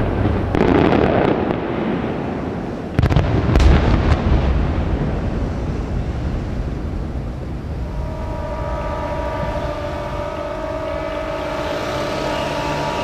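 Fireworks shells bursting over the sea: loud bangs at the start and again about three seconds in, each trailing off into a long echoing rumble. From about eight seconds in, several steady tones at different pitches sound together and hold.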